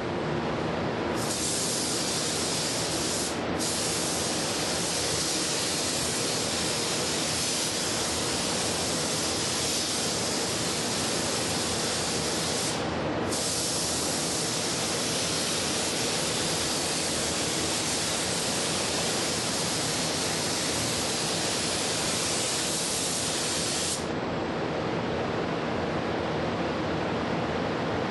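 Air spray gun hissing as it lays down a light tack coat of ArmorCoat protective coating. The spray stops twice for a moment and cuts off about four seconds before the end, over a steady rushing noise underneath.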